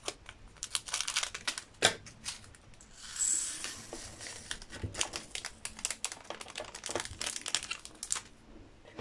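Small plastic zip bag of round resin diamond-painting drills crinkling as it is snipped open with scissors and handled, with the tiny drills tipped out of it into a small plastic container.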